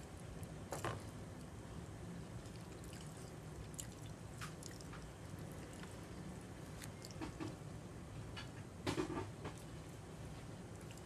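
A person eating cold sesame noodles: faint chewing and mouth noises with a few scattered small clicks, the busiest cluster about nine seconds in, over a steady low room hum.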